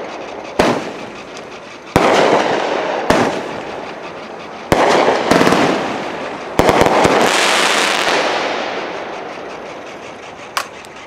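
A 20-shot 500-gram firework cake, Phantom Fireworks' Crack the Sky, firing its aerial shots: loud bangs a second or two apart, each trailing away slowly. About two-thirds of the way through several bangs come in quick succession, and a smaller pop follows near the end.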